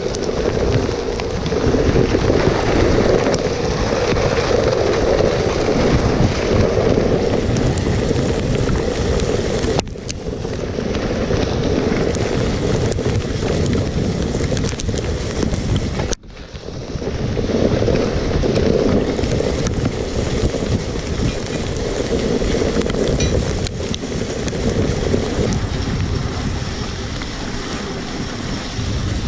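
Steady rushing noise of a dog sled travelling along a packed-snow trail: wind buffeting the sled-mounted camera's microphone and the runners sliding over the snow. The noise drops out abruptly twice.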